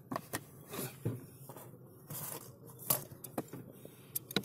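Faint handling noise: scattered light scrapes, rustles and clicks.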